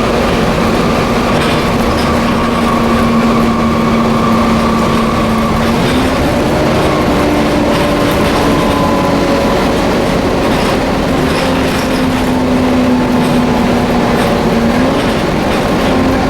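Volvo B7TL double-decker bus on the move, its loud vacuum-cleaner-like whine (the 'hoover') running over road noise and rattles. The whine steps up in pitch about six seconds in, drops back around ten seconds and rises again near the end as the bus changes speed.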